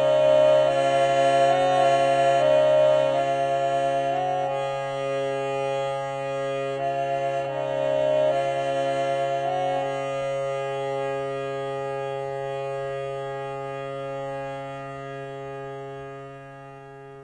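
Indian harmonium playing a slow instrumental outro: reedy chords change over a steady low drone, then one chord is held and slowly fades out as the song ends.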